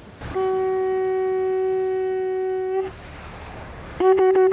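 Conch shell trumpet blown as a signal horn: one long steady note of about two seconds, then after a short pause a quick string of short broken blasts running into another held note at the same pitch. It is blown because the tails of fish have been sighted, calling the fishermen to gather quickly and haul the beach seine net ashore.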